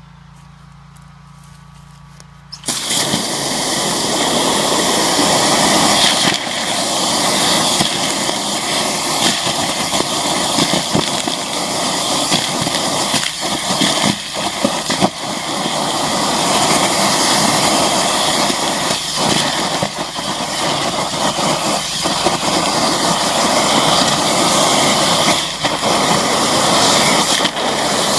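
High-pressure sewer jetter nozzle blasting through a drain pipe, flushing rubble out: after a low hum, the loud steady hiss and rush of the water jet comes on suddenly about three seconds in, with an engine running underneath.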